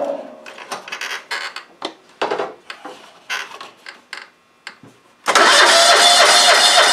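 Riding lawn mower's small air-cooled engine is switched off and runs down, then a few seconds of scattered clicks and knocks. About five seconds in it restarts, catching at once and running steadily, circulating the fresh oil to fill the new oil filter.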